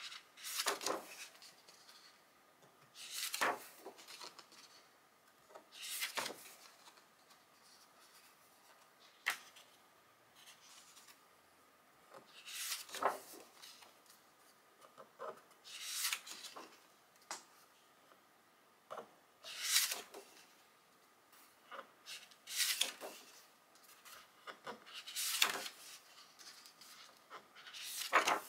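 Paper pages of a hardcover photobook dummy being turned by hand one after another, each turn a brief papery swish and rub, about every three seconds.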